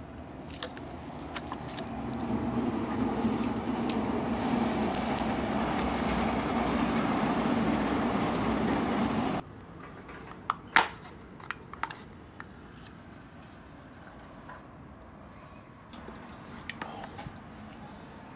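Steady traffic noise that cuts off abruptly a little over nine seconds in. After it come a few sharp plastic clicks and a crack as a drinking straw is pushed through the plastic lid of a cup drink.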